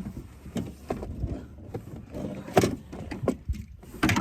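Irregular knocks and bumps against a small boat's hull and seat, with a sharper knock about two and a half seconds in and another near the end.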